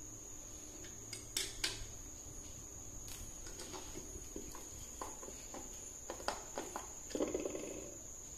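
Hard plastic clicks and knocks as the parts of a TV stand and a screwdriver are handled and fitted together, with a short rattling burst near the end. A steady high-pitched whine runs underneath.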